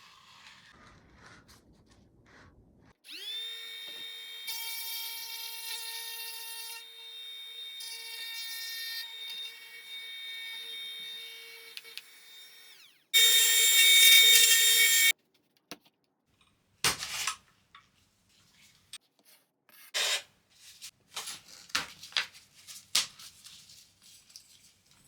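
Trim router motor spinning up and running with a steady high whine for about ten seconds, then winding down. A louder, harsher burst of about two seconds follows, then scattered knocks and clatter.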